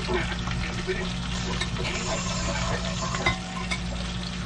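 Spiced chicken pieces frying in oil in a cast iron pot, sizzling steadily, while metal tongs click and scrape against the pot as the browned pieces are lifted out. A steady low hum runs underneath.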